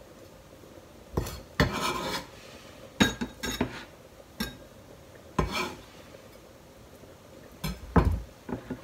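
Kitchen knife knocking on a plastic cutting board and clinking against a small ceramic bowl as chopped greens are scraped off the blade into it: a series of separate knocks, clinks and short scrapes.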